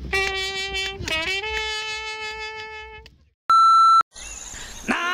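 Long held musical notes, stepping up in pitch with a short slide about a second in, fading out after about three seconds. Then a short loud electronic beep about half a second long, a moment of noise, and near the end a new held note that starts with a quick upward scoop.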